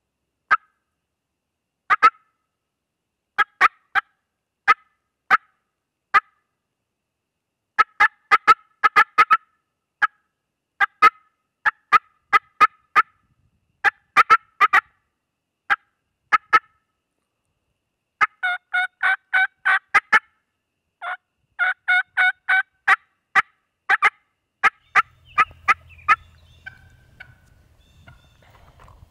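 Hen-turkey cutting imitated on a diaphragm mouth call: loud, firm, sharp cuts in irregular bursts, with a quicker run of yelps mixed in a little past the middle. The calling stops a few seconds before the end, leaving only a faint low hum.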